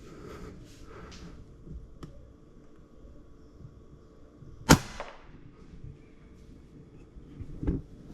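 FX Impact M3 PCP air rifle firing a single shot about four and a half seconds in: one sharp crack with a short ringing tail. A quieter knock follows about three seconds later.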